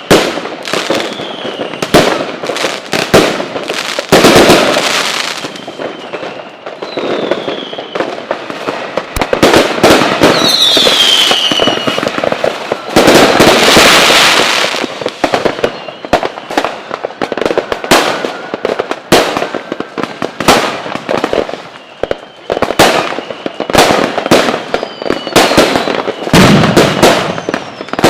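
Fireworks going off: rapid bangs and crackling, with short falling whistles now and then. The clearest whistle comes about eleven seconds in, followed by a dense burst of crackle.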